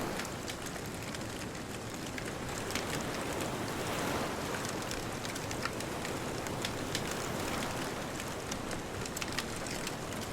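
Wood bonfire crackling with frequent small sharp pops, over a steady wash of distant ocean surf.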